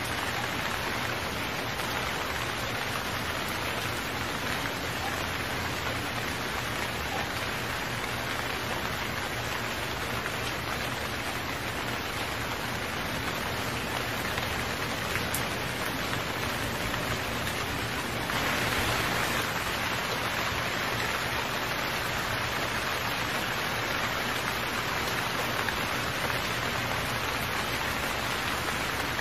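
Heavy rain falling steadily, a dense even hiss that grows a little louder about two-thirds of the way in.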